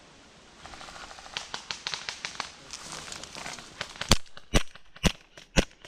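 Airsoft gun firing single shots: four sharp cracks about half a second apart in the last two seconds, after a stretch of light crackling from brush.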